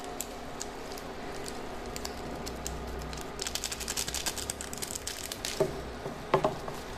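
A foil sachet of cheese powder crinkling as it is shaken over noodles in a steel pan, a quick run of small crackles, then a spatula stirring and knocking twice against the pan near the end. A faint steady hum runs underneath.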